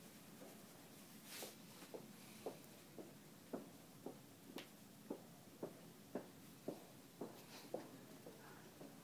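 A faint, even series of about a dozen soft knocks, roughly two a second, starting about two seconds in and stopping near the end.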